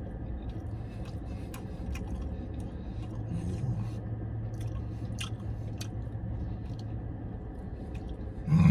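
A man chewing a bite of a Starbucks spinach feta flatbread sandwich, with scattered short wet mouth clicks, over a steady low hum inside a car. A brief loud vocal sound comes near the end.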